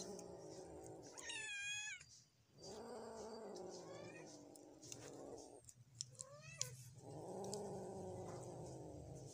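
A cat growling low with a lizard in its mouth, guarding its prey from another cat: three long drawn-out growls, each a few seconds long, with a short high-pitched mew about a second and a half in and another about six and a half seconds in.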